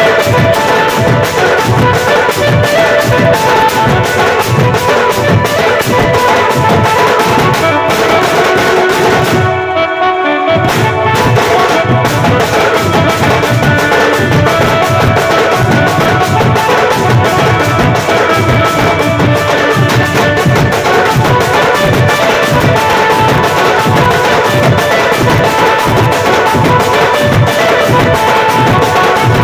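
Live band-party music: shoulder-slung barrel drums beaten with stick and hand in a steady, driving rhythm, with a metal cymbal and a sustained melody line over them. The sound briefly thins about ten seconds in.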